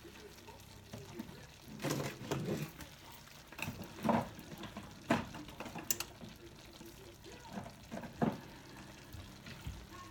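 Stir-fry sauce simmering in a stainless steel skillet, bubbles popping irregularly as the liquid cooks down.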